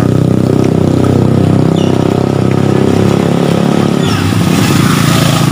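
Small motorcycle engine running steadily as the bike rides along a flooded road, with a growing hiss of tyres throwing water about four seconds in as it comes close.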